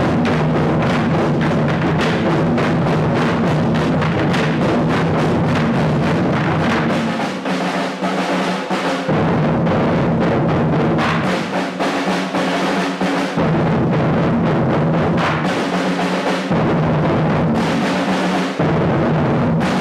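A Twenty-Four Festive Drums ensemble playing: many large Chinese drums struck together in a fast, dense rhythm. Several times the deep drum sound drops out for a second or two, leaving the higher drums.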